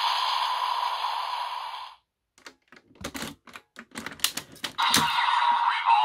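DX Command Twin Buckle toy belt: its electronic sound effect plays and cuts off at about two seconds. A run of sharp plastic clicks and clacks follows as the buckle is turned around by hand, and the belt's electronic sounds start again about a second before the end.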